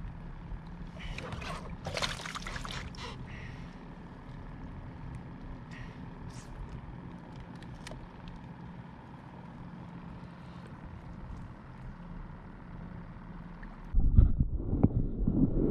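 Small handling noises over a steady low hum while bait shrimp are broken up by hand in a kayak, busiest about a second or two in. About fourteen seconds in, a much louder, muffled churning of water takes over, as heard through an underwater camera's microphone.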